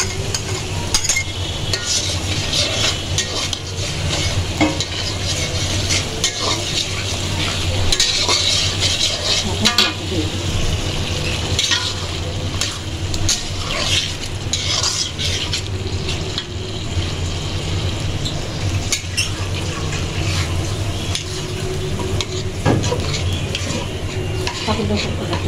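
Chickpeas and potato cubes frying in oil and spice paste in a karahi, sizzling steadily while a metal spatula stirs them, scraping and tapping against the pan over and over.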